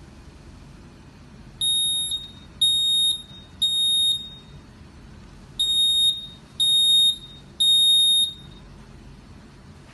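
Digital area medical gas alarm panel's buzzer sounding during an alarm test: a high-pitched beep, each about two-thirds of a second long, three times at about one a second, then after a pause three more.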